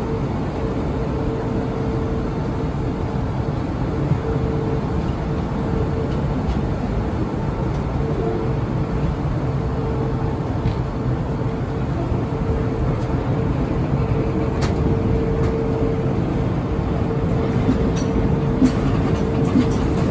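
Passenger train running on the rails, heard from an open coach window: a steady rumble of wheels and running gear with a steady mid-pitched hum, and a few sharp clicks from the wheels over the track in the last few seconds.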